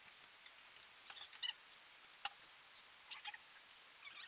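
Quiet eating sounds from bowls of bakso: metal spoons tapping glass bowls, with mouth noises of chewing and slurping, heard as a scatter of short, sharp clicks, the loudest a little over a second in and again past the middle.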